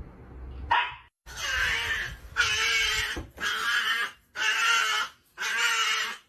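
A dog vocalizing in a string of drawn-out calls, each about a second long, with sharp breaks between them.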